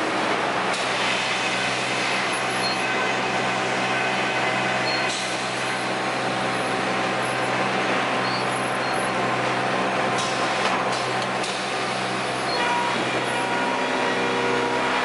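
Sawmill machinery running: a loud, steady mechanical drone with an even motor hum underneath.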